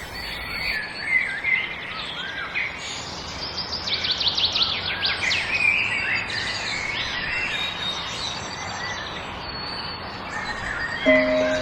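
Several songbirds chirping and singing in overlapping fast trills and short whistled phrases over a steady background hiss. Piano notes come in near the end.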